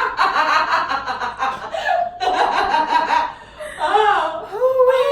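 A woman laughing hard in two long bouts, then a drawn-out "oh" near the end.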